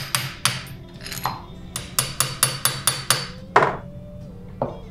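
A small hammer tapping the aluminium guide unit of a pneumatic cylinder, about a dozen sharp metallic taps, some in quick runs of four or five a second. Two more spaced knocks come near the end.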